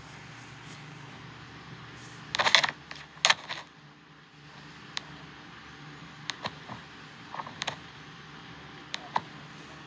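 Clinking and clattering of small hard objects close to the microphone: a loud rattle about two and a half seconds in and another about a second later, then a scattering of single sharp ticks, over a faint steady hum.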